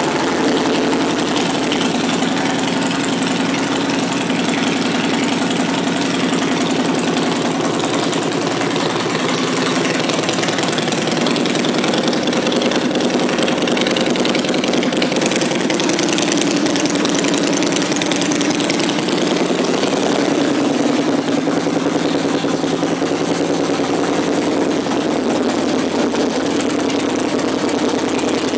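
2012 Harley-Davidson Fat Bob's 103 cubic inch air-cooled V-twin idling steadily through aftermarket Vance & Hines exhaust pipes.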